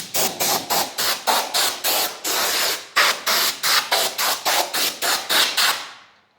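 Compressed air blowing in rapid short puffs, about three or four a second, with one longer blast a little past two seconds in, blowing loose material off the brick press. It stops about six seconds in.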